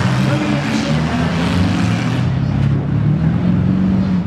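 Several demolition derby cars' engines running at once, their pitch wandering up and down as the drivers work the throttle.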